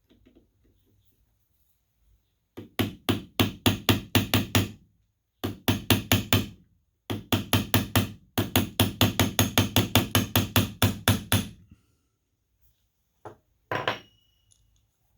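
A small hammer tapping rapidly on a steel watch-bracelet clasp, about six light strikes a second in three runs, to close up the clasp so it stops popping open. A couple of single knocks follow near the end.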